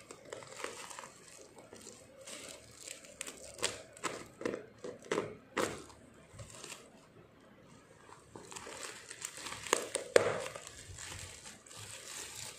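Bubble wrap crinkling and rustling by hand while brown packing tape is slit and torn off a parcel: irregular crackles and short tearing rustles, the loudest near the end as the wrap is opened out.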